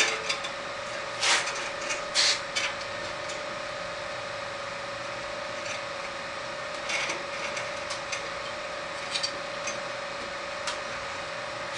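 Bandsaw blade being hooked onto the saw's wheels by hand: a few short scrapes and rubs a few seconds apart, over a steady faint hum.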